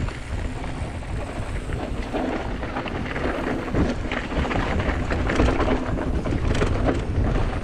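Mountain bike riding fast down a dry, rocky dirt trail: tyres crunching over dirt and loose stones, with frequent knocks and rattles from the bike. A low wind rumble on the microphone runs under it.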